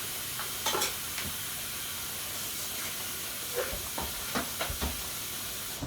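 Steady hiss of a pot boiling on the stove, with a few light knocks and clicks from handling in the kitchen.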